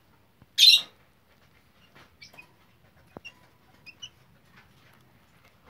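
Young Serama bantam chicken giving several short, high peeps. Under a second in there is one brief loud rustling burst, and about three seconds in a single light click.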